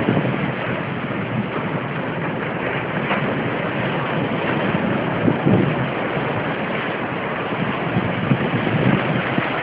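Surf breaking and washing up a sandy beach in a steady rush, with wind buffeting the microphone in a few brief low gusts.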